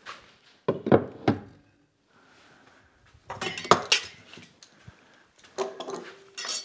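Metal hand planes being set into a wooden till: clunks and metallic clinks in three clusters, around one second in, near four seconds in and near the end.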